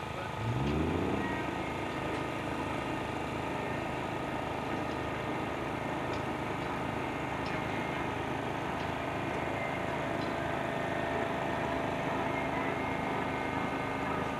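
Diesel engine of a railway breakdown crane running steadily while it holds a wrecked locomotive aloft, revving up briefly about half a second in.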